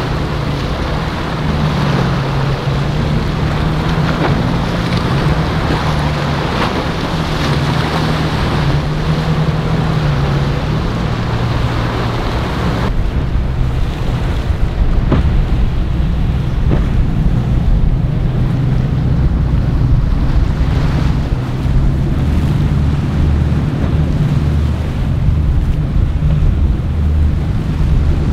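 Boat engines running with a low, steady drone, under the loud rush of waves, water and wind buffeting the microphone. About halfway through, the hiss of wind and water drops away suddenly and mostly the engine drone remains.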